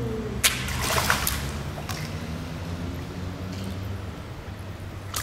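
A hooked European perch splashing at the water's surface beside the boat as it is reeled in and lifted out, with short splashes about half a second and a second in. A steady low rumble runs underneath.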